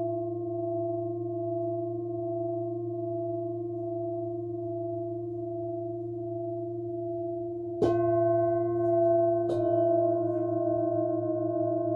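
Metal singing bowls ringing with a slow wavering pulse over a low hum. About eight seconds in a bowl is struck, and another about a second and a half later, each adding fresh ringing tones that keep sounding.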